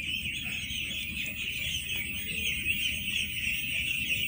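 A flock of young ducklings calling together: a steady, dense chorus of high peeping with no break.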